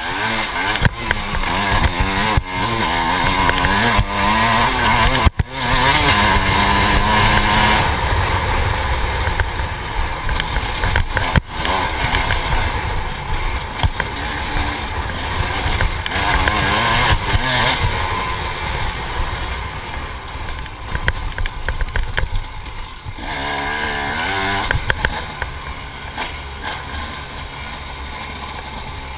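Dirt bike engine being ridden hard on a trail, its pitch rising and falling with the throttle and gear changes, with two sharp momentary drops about five and eleven seconds in.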